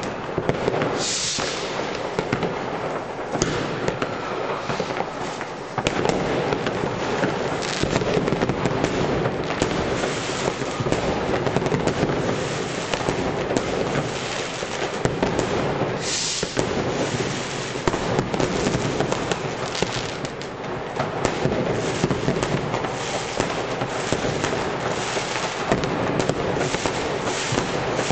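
Mass fireworks: many rockets and firecrackers going off at once, an unbroken barrage of bangs and crackles with no pause.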